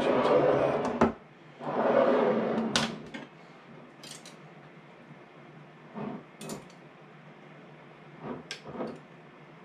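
Kitchen handling noise from glass mason jars of raw-packed sausage: two scraping, rubbing noises about a second each near the start, then scattered light clicks and taps of a utensil against the glass as the meat is pushed down under the broth to free air bubbles.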